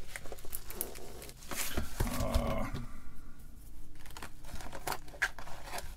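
Bubble-wrap packaging crinkling and crackling as circuit boards sealed inside it are handled and slid across each other, in many small irregular crackles.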